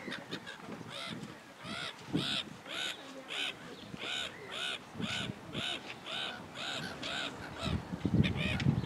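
Black-headed gull calling: a long series of evenly spaced harsh calls, about two a second, each rising and falling in pitch. A low rumble comes in near the end.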